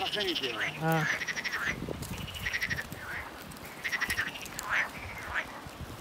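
Frogs calling over and over in rapid pulsed trills, and sheep bleating twice near the start.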